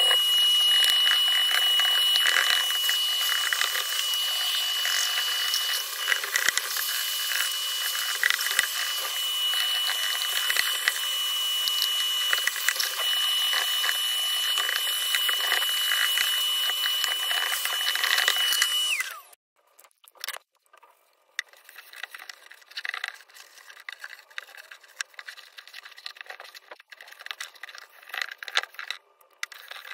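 Vacuum cleaner running with a steady high whine while its hose sucks over the foam inserts; about two-thirds of the way through it switches off and the whine drops away. Light handling knocks and rubbing follow.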